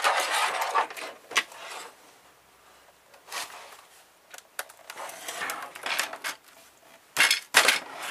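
Handling noise from a plastic laptop case being worked on a wooden table: a rubbing scrape at the start, then scattered clicks of plastic, and two sharp knocks close together near the end.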